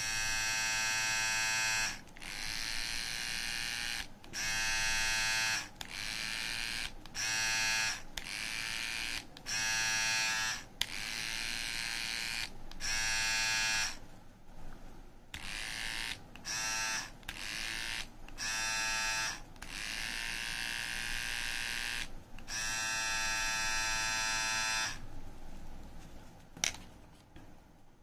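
Two Philips beard trimmers, a BT3221 and a QT4011, are switched on and off in turn about a dozen times, each running briefly without cutting hair. One gives a steady whine with many overtones, the other a hissier buzz.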